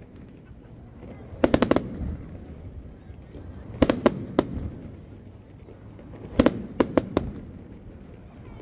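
Fireworks exploding in three quick volleys of sharp cracks, about a second and a half in, around four seconds in and around six and a half seconds in, each volley three or four bangs close together.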